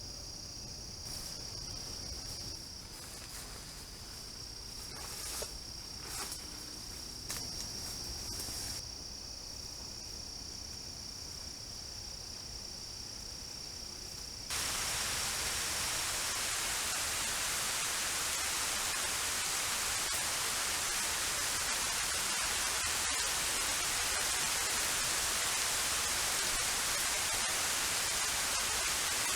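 A steady high insect trill with a few rustles and knocks, then, about halfway through, an abrupt change to a loud even hiss of heavy rain pouring down.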